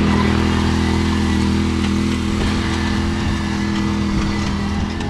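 John Deere Z530R zero-turn mower's engine running steadily at an even speed.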